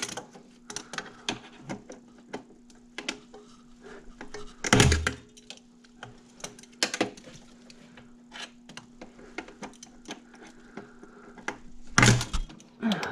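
Metal hand tools and engine parts being handled in an engine bay: irregular light clicks and clinks, with a louder knock about five seconds in and another near the end, over a steady low hum.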